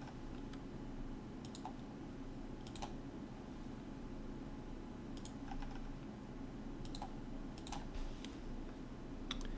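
Computer mouse and keyboard clicks: about ten short, sharp clicks at irregular spacing, some in quick pairs, over a steady low hum.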